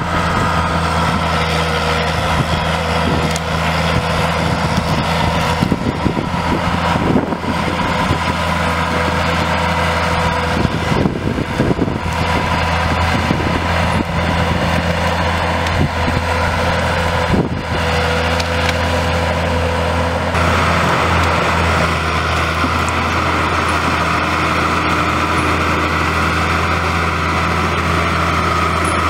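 Timberjack 1070 forestry harvester running with a steady diesel drone and a constant whine. Its harvester head cracks and snaps through thin trees, with sharp cracks around six to eight seconds in, again around eleven seconds, and once at about seventeen seconds.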